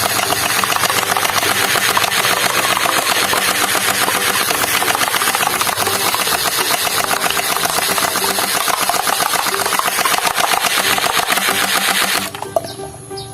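Toy gun firing on automatic: a fast, steady mechanical rattle that cuts off suddenly about twelve seconds in.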